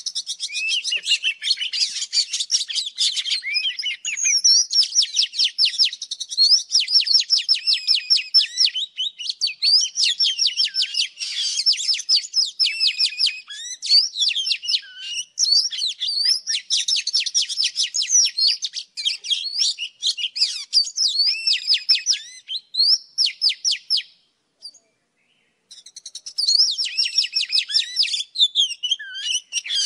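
Oriental magpie-robin song: a dense, rapid stream of varied high chirps and whistled notes. It breaks off for about a second and a half a little after three-quarters of the way through, then resumes.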